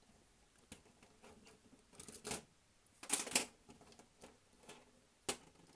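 Small clicks and scrapes of plastic and metal parts being handled: an H0 model locomotive chassis being fitted with its motor shield and screws. Louder scraping comes about two and three seconds in, and a single sharp click near the end.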